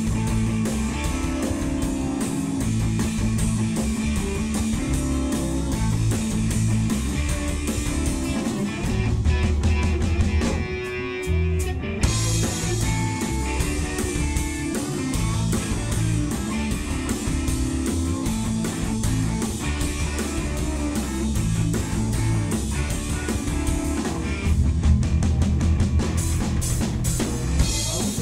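Rock music with guitar and a full drum kit being played: kick, toms and bright cymbal wash in a dense, driving rhythm. The cymbals drop out briefly about eleven seconds in, then the playing resumes.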